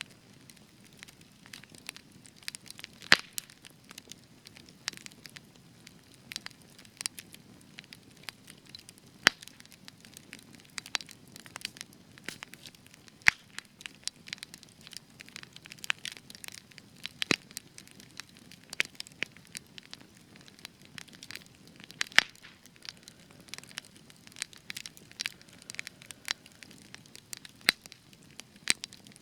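Spruce wood burning in a campfire, crackling with irregular sharp pops, several a second, a few of them much louder, over a low steady hiss of flame.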